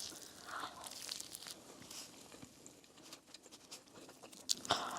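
Close-miked chewing of pepperoni pizza: soft wet mouth clicks and smacks, with a louder cluster of smacks near the end.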